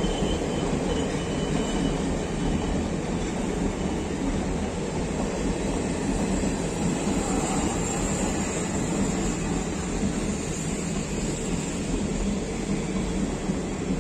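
A passenger train passing close by at speed, its coaches running past with a steady, continuous noise of wheels on the rails.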